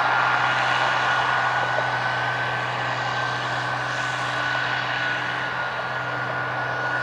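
Case 2188 Axial-Flow combine running steadily while harvesting corn: a constant diesel drone with a steady high whine over it.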